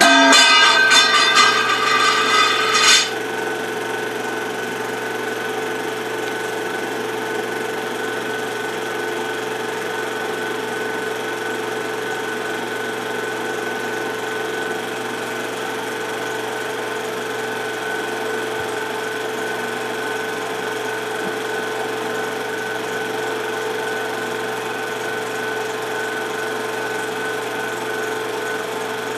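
Film projector running with a steady mechanical whir and a constant hum. A louder buzz covers the first three seconds, then the whir settles and stays even.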